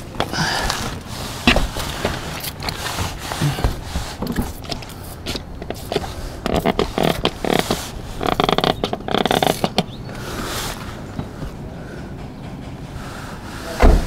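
Trigger spray bottle squirting soapy water onto A/C lines and fittings in a soap-and-water leak test, in short bursts, mixed with scraping and handling noises. A sharp knock comes near the end.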